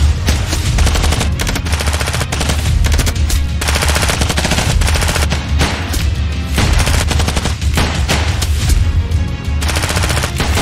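Film gunfight: rapid, dense bursts of automatic rifle and pistol fire that go on without a break, over a film score with a heavy low pulse.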